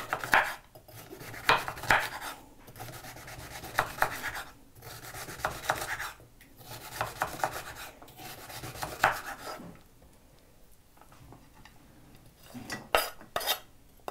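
Kitchen knife chopping carrots on a wooden cutting board, the blade knocking on the board in irregular strokes. It goes quieter about ten seconds in, then a few sharp knocks near the end as the diced carrot is scraped off the board into a glass bowl.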